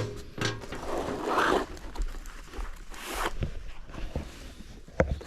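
Scratchy rubbing in a few passes, with a sharp click at the start and another near the end: a furnace flame sensor being scrubbed clean of light buildup.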